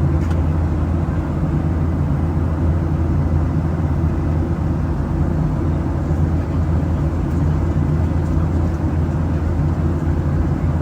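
Steady drone inside an airliner cabin in flight: engine and airflow noise, low and unchanging.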